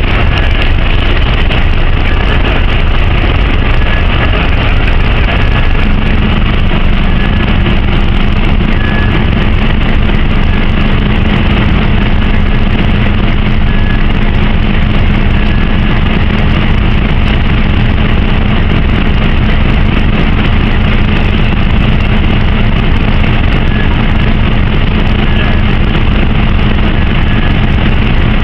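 Steady, loud engine noise with a constant rumble, joined about six seconds in by a steady low hum that holds to the end.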